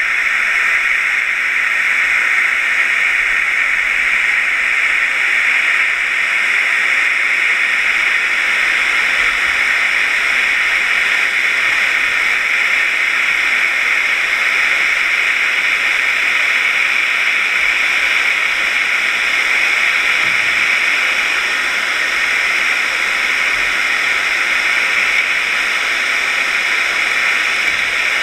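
Steady, even hiss of water rushing past a GoPro's waterproof housing, which is mounted on a scallop dredge towed along the seabed.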